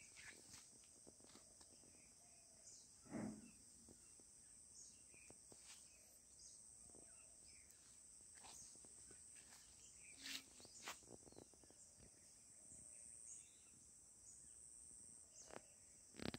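Faint outdoor ambience: a steady high insect drone, with scattered soft clicks and knocks and a louder thump about three seconds in.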